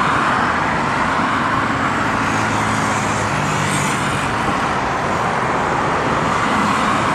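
Jet airliner engines running, a steady loud rushing noise with faint low hums in the middle.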